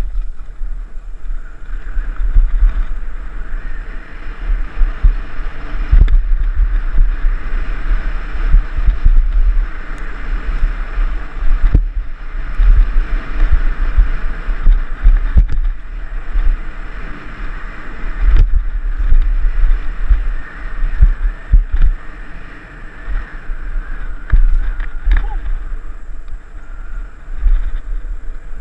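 Wind buffeting the camera microphone in uneven gusts while riding fast down a dirt singletrack, with rolling tyre noise and a few brief knocks from bumps in the trail.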